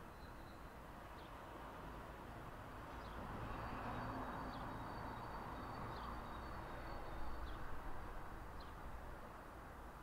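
Outdoor ambience: a faint low hum of distant traffic that swells for a few seconds in the middle, with small birds chirping now and then and one thin high whistle held for several seconds.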